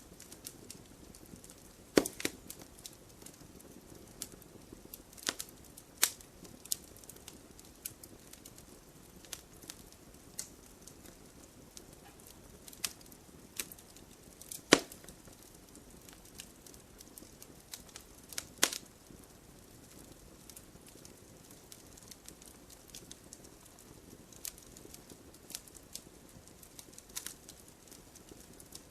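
Campfire burning: irregular sharp pops and snaps of burning wood over a soft, steady crackling hiss, with a few louder cracks standing out.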